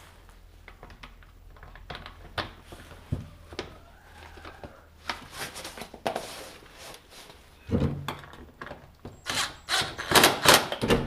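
Bolts being started into a Polaris Sportsman 570's belt housing with a magnet tool: scattered metal clicks and clunks that grow busier and louder over the last few seconds.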